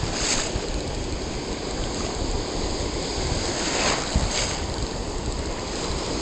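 Ocean surf washing around a camera held at the water's surface, with wind buffeting the microphone. Water splashes sharply against the camera just after the start and twice more about four seconds in.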